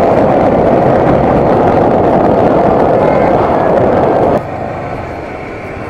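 Steady rush of wind and riding noise from a Bajaj Dominar 400 motorcycle on the move. It drops suddenly to a lower level about four and a half seconds in.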